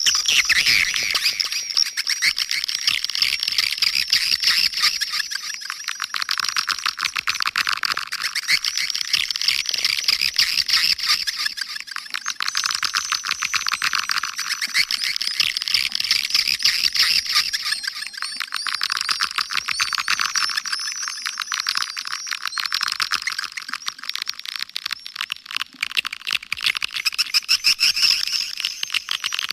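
Dense, continuous chorus of swiftlet chirps and twitters: a recorded swiftlet lure call of the kind played to draw the birds into a nesting house. The sound is thin, with nothing in the low end.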